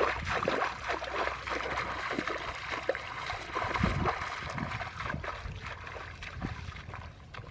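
Footsteps splashing through shallow muddy water, a busy patter of small splashes that fades as the two waders move away.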